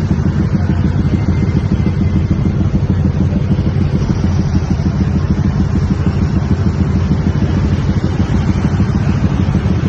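A bus's diesel engine running steadily with a rapid, even pulsing beat; no telolet horn sounds.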